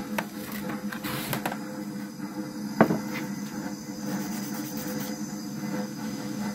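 Gloved hands handling a plastic cooler and a dry-ice-chilled steel cylinder sleeve, with rustling and a click near the start; about three seconds in, the sleeve is stood on a wooden workbench with one sharp knock. A steady hum runs underneath.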